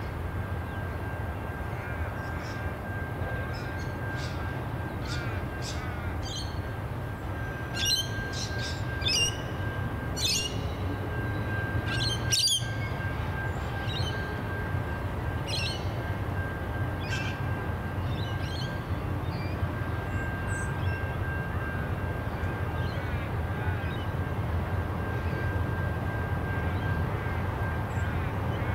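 Birds chirping and calling in short repeated notes, loudest about 8 to 13 seconds in, over the steady low rumble of an EL class diesel locomotive slowly approaching with a rail train. A faint steady high whine runs under it for most of the time.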